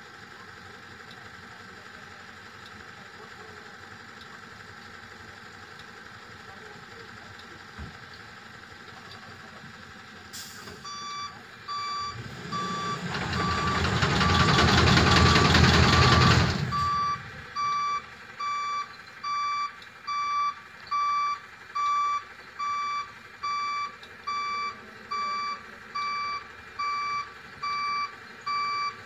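Tata multi-axle lorry manoeuvring: its diesel engine runs low at first. About ten seconds in, the reversing alarm starts beeping about once a second and keeps on. In the middle the engine revs hard for about four seconds, the loudest part.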